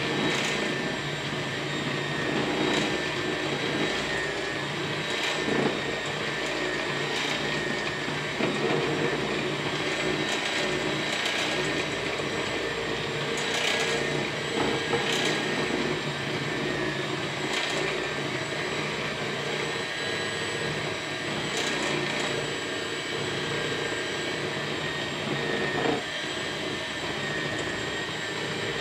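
Black+Decker electric hand mixer running steadily, its beaters whirring through cake batter in a glass bowl, with a few faint clicks here and there.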